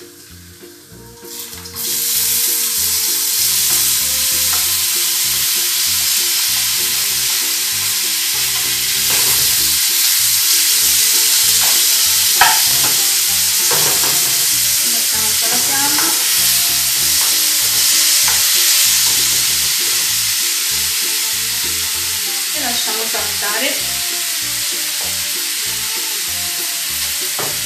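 Diced porcini mushrooms tipped into a hot frying pan of garlic and parsley, setting off a sudden loud sizzle about two seconds in. The frying sizzles steadily on while a spoon stirs and scrapes in the pan, easing slightly near the end.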